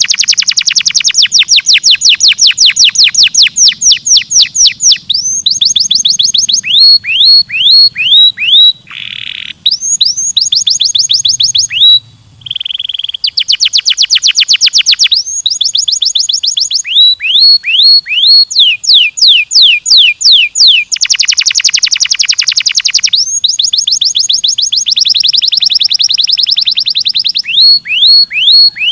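Domestic canary singing loudly: long trills of fast, evenly repeated downward-sweeping notes, alternating with slower phrases of separate sweeping notes, with a couple of short breaks.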